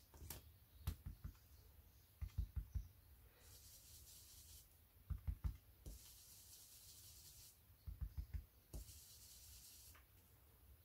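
Small stencil brush dabbing ink through a plastic stencil onto card: faint quick taps in short runs of three to five, with stretches of soft brushing hiss in between.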